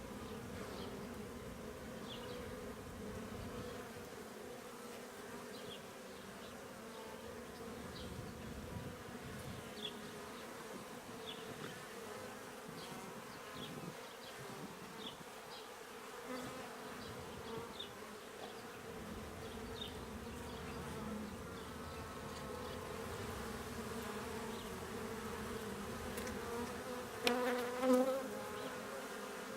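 Honey bees buzzing in an opened hive: a steady, low hum. Near the end the buzz swells briefly and wavers in pitch.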